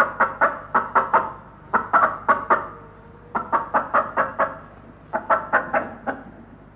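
Recording of a hen clucking, played back: four runs of quick, short clucks, several a second, with brief pauses between the runs.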